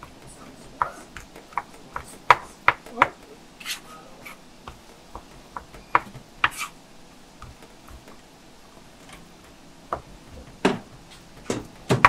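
Kitchen work: irregular sharp knocks and clicks of utensils and dishes, with a cluster of louder ones about two to three seconds in and more near the end.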